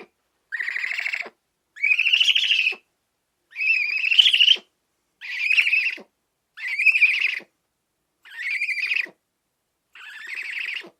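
A wild animal calling over and over: seven raspy, buzzy calls of about a second each, evenly spaced roughly a second and a half apart.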